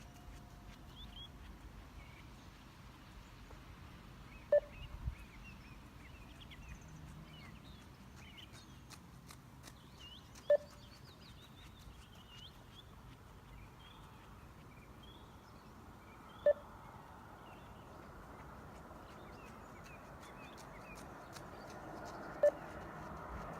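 20 m beep test (multistage shuttle run) signal sounding a short single beep every six seconds, four times, each beep marking the end of one 20 m shuttle at level 8's pace.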